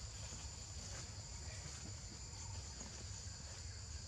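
Steady high-pitched chorus of insects in forest, unbroken throughout, over a low background rumble.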